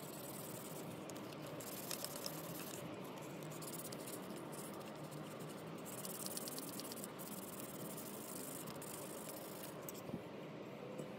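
Sandpaper rubbed by hand over the plastic housing of a Craftsman 315.7721 electric drill: scratchy rubbing strokes that come and go in spells, with a few light clicks as the parts are handled.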